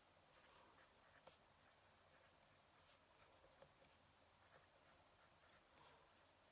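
Faint scratching of a fountain pen nib moving across paper, with a few soft ticks scattered through it.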